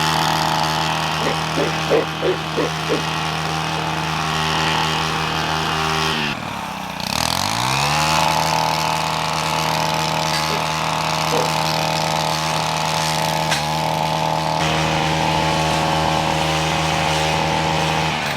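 Gas string trimmer (weed whacker) running at high throttle. About six seconds in the engine drops sharply toward idle, then revs back up, and it lets off right at the end.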